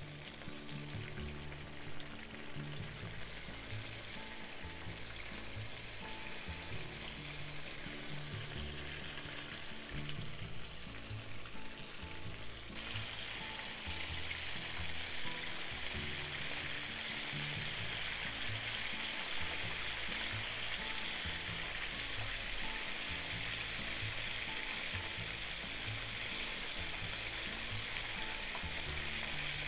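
Potato-starch-dusted tofu cubes deep-frying in a pan of oil, a steady crackling sizzle that grows a little brighter and louder about halfway in. Background music plays underneath.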